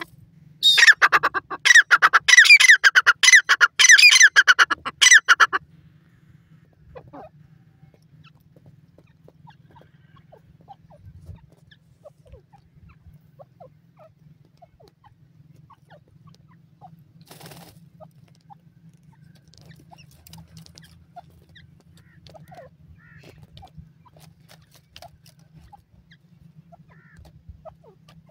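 Grey francolin (teetar) calling: a loud run of rapidly repeated shrill notes lasting about five seconds, which then stops. After the call only a faint low hum and a few soft rustles remain.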